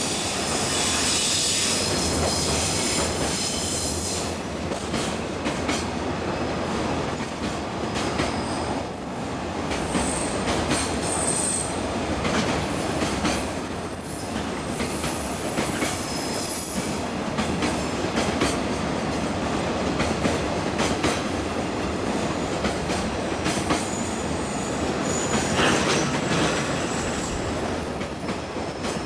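Freight train hauled by an EF65 electric locomotive rolling past over the rails: a steady rumble of wheels on track with irregular clicks, and thin high-pitched wheel squeals that come and go several times.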